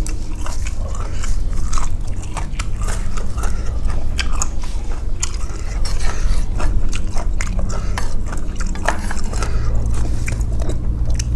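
Close-up eating sounds of a person chewing and biting a bowl of noodle soup with pork balls: a continual run of small sharp wet mouth clicks and chews over a low steady hum.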